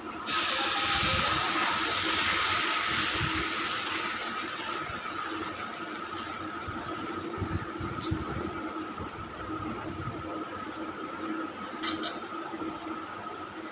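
Dosa batter sizzling on a hot cast-iron dosa pan as it is poured and spread in circles with a ladle. The sizzle starts suddenly, is loudest for the first few seconds, then settles to a quieter steady sizzle.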